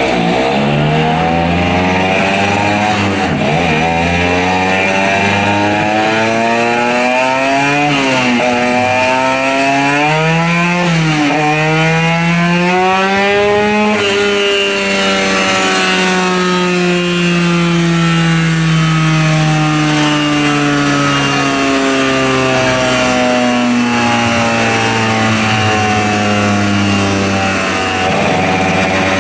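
Tuned 140cc two-stroke motorcycle engine with a racing exhaust, run hard on a chassis dyno. It revs up through the gears, its pitch climbing and dropping back at each shift to a peak about halfway through. Then it winds down slowly and evenly for over ten seconds and begins revving again near the end.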